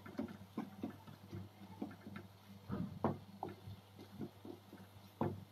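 Wooden spatula knocking and scraping against a frying pan as paneer bhurji is stirred: irregular taps several times a second, the loudest about three seconds in. A low steady hum runs underneath.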